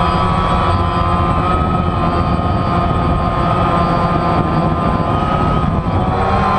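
DJI Phantom quadcopter's four electric motors and propellers whining steadily, heard from the camera mounted on the drone itself, with a low rushing noise underneath. The pitch wavers slightly as the drone manoeuvres.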